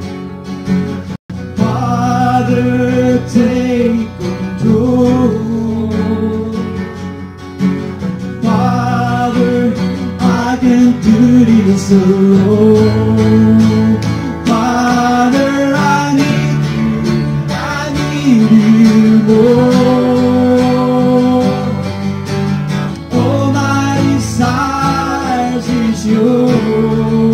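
Live acoustic guitar strumming with electric bass guitar, playing a slow worship song with sung vocals. The sound drops out briefly about a second in.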